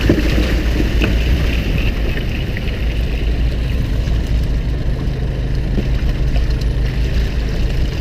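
Small fishing boat's engine running steadily, a low even drone, with a few faint knocks from handling the net.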